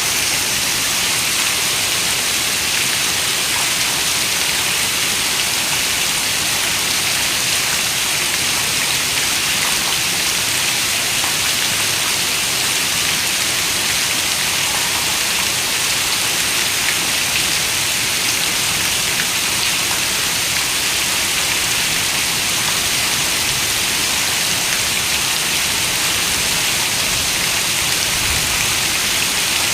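Steady rain falling, an even hiss that neither rises nor falls, with no thunder.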